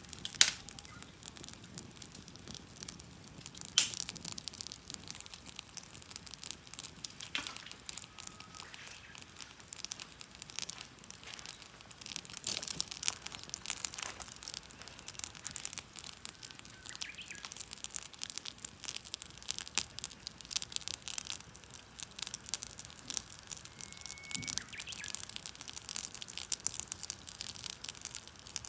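Wood fire crackling with constant irregular snaps and ticks, and two louder sharp pops in the first few seconds.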